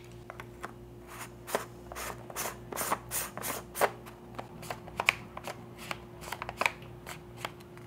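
Handling noise from a Sony FE 50mm F1.4 GM lens: its plastic bayonet hood twisted off and a filter threaded onto the front, an irregular run of small clicks and scrapes, loudest about five seconds in and again near six and a half seconds in.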